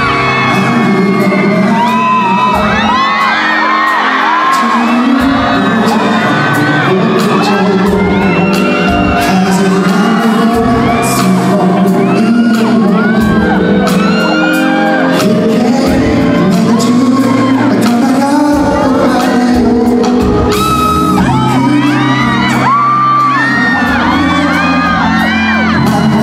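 Live amplified pop music with a man singing into a handheld microphone, over repeated high-pitched screams and cheers from the audience.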